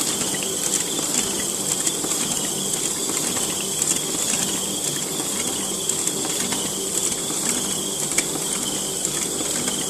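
Hamada B52-SF small offset printing press running, a steady mechanical clatter of many small clicks over a constant hiss and hum.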